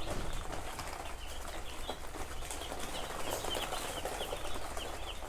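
Birds chirping in many short, high, falling calls, several a second, over a steady low rumble.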